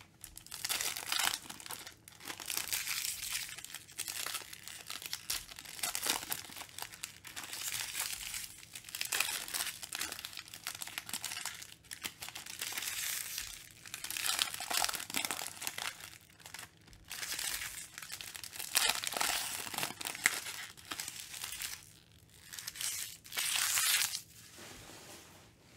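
Metallic foil trading-card pack wrappers (Panini Mosaic basketball packs) being torn open and crumpled by hand, in repeated bursts of crinkling and tearing with short pauses between packs, stopping near the end.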